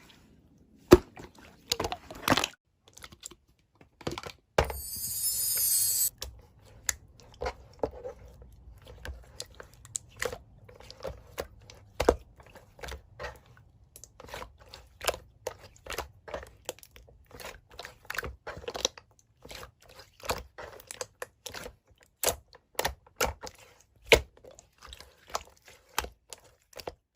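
Slime being squeezed and poked by hand, making a string of irregular sticky clicks and crunchy pops, with a brief hissing rush about five seconds in.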